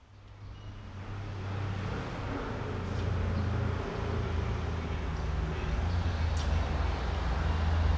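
Low, steady engine rumble of a road vehicle that swells over the first couple of seconds and then holds, with a couple of light clicks over it.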